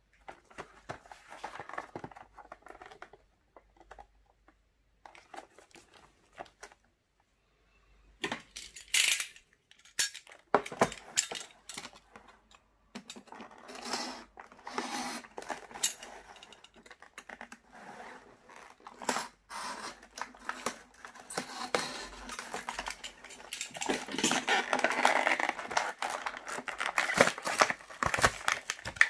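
Clear plastic blister pack and its paper backing crinkling, crackling and tearing as they are handled and cut open with a utility knife, in irregular clicks and rustles; the crinkling grows denser and louder in the last several seconds.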